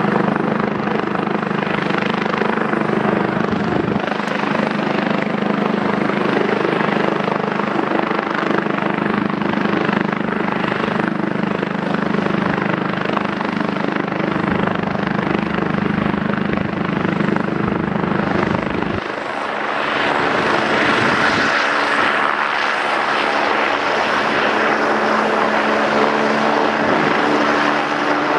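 Eurocopter EC145 air-ambulance helicopter running on the helipad, turbines whining and main rotor turning with a steady low hum. About two-thirds of the way in, the low hum drops away suddenly and the sound turns brighter as power comes up and the helicopter lifts off into a hover.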